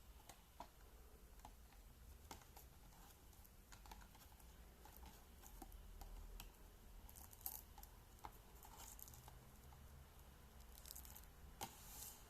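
Faint, irregular small clicks and brief rustles of hands handling an unboxed toy RC car and its packaging.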